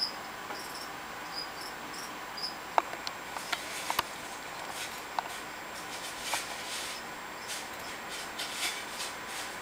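Leopard gecko feeding from a ceramic dish of mealworms: a few sharp clicks about three to four seconds in, then soft crackling bites. Faint high cricket-like chirps repeat in the first couple of seconds.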